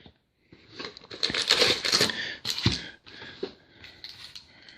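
Wrapper of a 2017 Donruss Racing trading-card pack crinkling as it is torn open and handled, with a soft thump a little past halfway.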